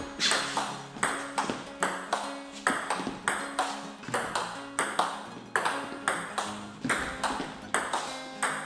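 Table tennis rally: the ball clicks alternately off the table and the players' bats, about two hits a second, each with a short ring in the room.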